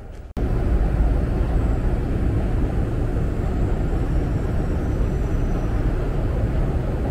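Loud, steady rumble and hiss of a deep subway station, heard while riding a long escalator down, cutting in abruptly a moment in.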